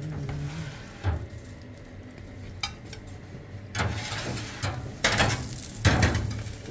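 Metal kitchen tongs and a ceramic plate: several separate clinks and knocks as a baked pie is lifted out of its tin and set down on the plate, over a low steady kitchen background.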